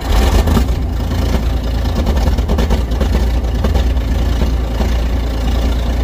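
Claas Dominator 108 combine's diesel engine catching right at the start after a long crank, then running loud and steady as it smokes on the cold start.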